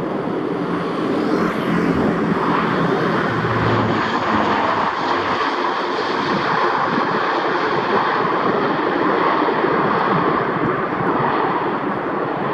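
Four turboprop engines of a Lockheed C-130 Hercules transport plane running steadily as it lands and rolls down the runway.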